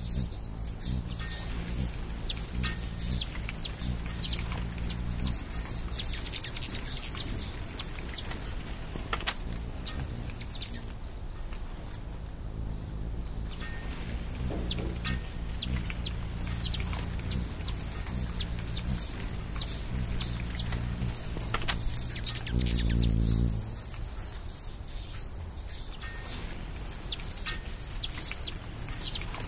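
Insects trilling in a steady high-pitched drone that stops briefly twice, with scattered bird chirps over it. A low hum runs underneath and swells briefly a little after twenty seconds in.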